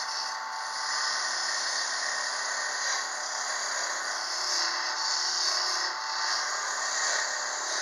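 Harbor Freight wood lathe running while a hand-held turning tool cuts a spinning cherry branch: a steady hiss and scrape of shavings over the motor's whir, swelling and easing a little as the tool bites.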